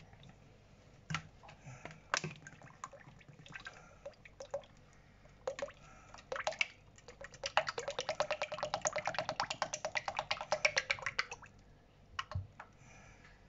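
Cooking oil poured from a large plastic bottle into a frying pan: scattered drips and clicks at first, then a fast, even run of glugs lasting about four seconds in the middle.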